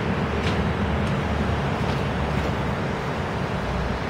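Electric articulated tram close by, a steady low rumble and hum, with faint high ticks over it.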